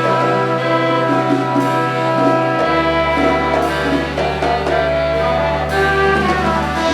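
Brass band (fanfare) music: horns hold sustained chords over a steady bass note that steps down lower about a third of the way through.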